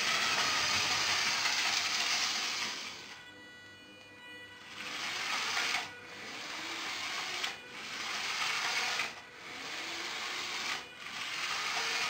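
LEGO 9V train motor whirring and its wheels running on plastic track. The sound fades out for about a second and a half in the middle, then comes back with brief drops about every second and a half.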